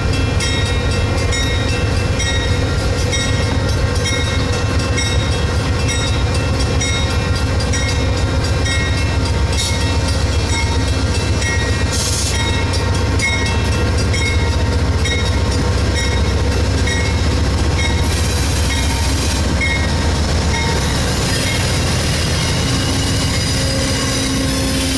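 Amtrak passenger train with a GE P42DC diesel locomotive pulling out of the station after the highball: the engine runs steadily under load with a low rumble and a steady hum. Three short hisses come about a third of the way in, about halfway, and later for over a second.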